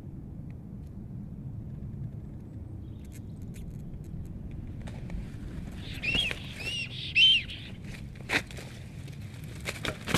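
Steady low background rumble. About six seconds in come three short rising-and-falling bird calls, then scattered sharp knocks, and near the end a flurry of rustling and clattering as a black stork flaps its wings on the stick nest.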